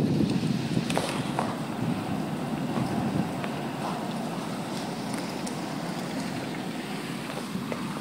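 Storm wind buffeting the microphone in a hurricane, a steady roar with a few faint taps. It eases off from a loud gust over the first couple of seconds.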